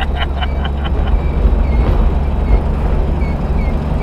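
Datsun 280ZX driving, heard from inside the cabin: a loud, steady low engine and road rumble, with faint short high chirps repeating every half second or so from about a second in.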